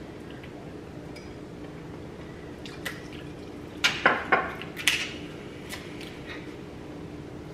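Clicks and sharp cracks of a lobster meal being eaten: metal tools on lobster shell and dishes, a quick cluster of cracks about four to five seconds in, over a faint steady hum.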